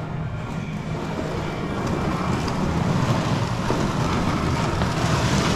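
An engine running steadily, slowly getting a little louder, with wind buffeting the microphone.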